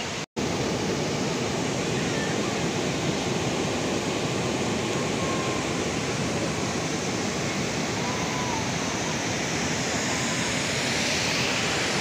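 Waterfall pouring into a river pool: a steady, dense rush of falling water, after a brief drop-out near the start.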